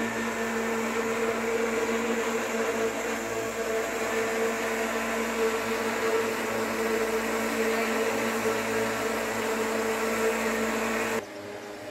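Electric kitchen blender running steadily, whirring as it blends milk, garlic and oil into a garlic cream; it switches off abruptly about eleven seconds in.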